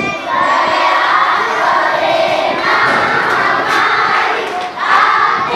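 A large group of schoolchildren singing a morning-assembly prayer in unison, in phrases with short breaks between them.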